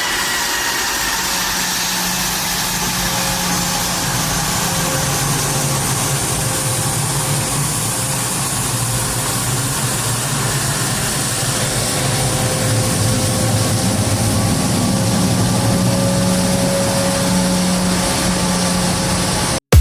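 Jet aircraft engine running steadily: an even rush of noise with a faint whine held at a few pitches. It cuts off abruptly right at the end.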